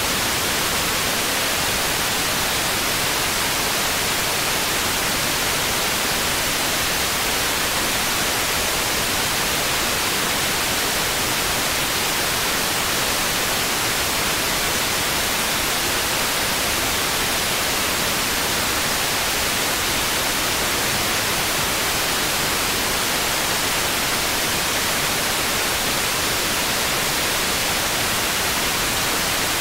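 Loud, steady static hiss, even across all pitches and unchanging throughout, with no commentary or crowd sound beneath it: the audio track has been replaced by pure noise.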